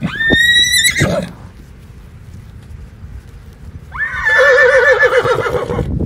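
Horse whinnying twice: a short high call right at the start, then a longer quavering whinny about four seconds in.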